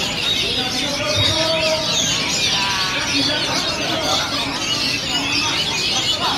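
Many caged oriental magpie-robins (kacer) singing at once, a dense tangle of overlapping chirps, whistles and trills, with voices murmuring underneath.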